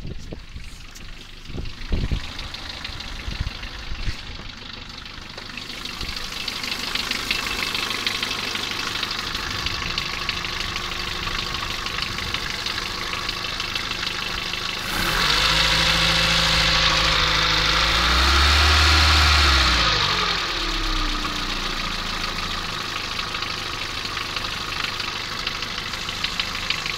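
Renault Twingo's D7F 1.2-litre four-cylinder petrol engine running with a rattle. It gets louder a little past halfway, its speed rises for a few seconds and then settles back to idle.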